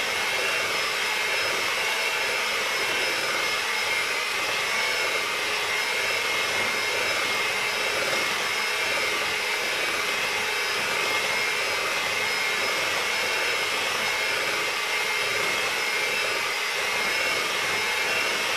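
Electric hand mixer running steadily with a constant whine, its beaters whipping butter, powdered sugar and eggs in a glass bowl.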